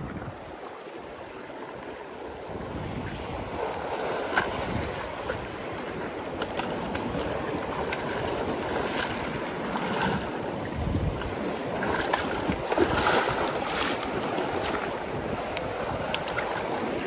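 Sea surf washing and breaking on a rocky shore, with wind on the microphone. The wash grows louder about three seconds in, with several sharper splashes of breaking waves later on.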